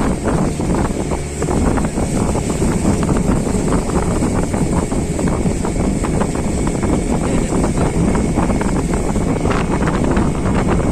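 Motorboat engine running steadily while the boat is under way, with wind buffeting the microphone.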